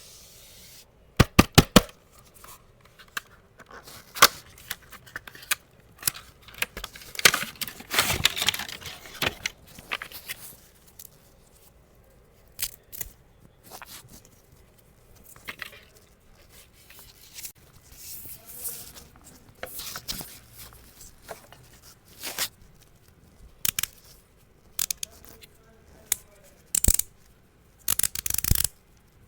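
Product packaging being opened by hand: sharp clicks and taps, with spells of tearing and rustling of the box and plastic wrap, loudest about a quarter of the way in and again near the end.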